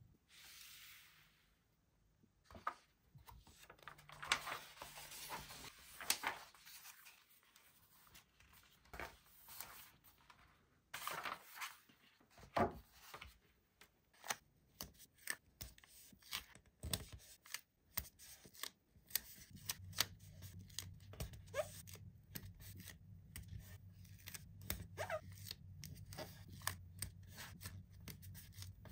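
Plastic toy packaging being torn open and rustled, then many small sharp clicks and taps as small plastic toy pieces are handled.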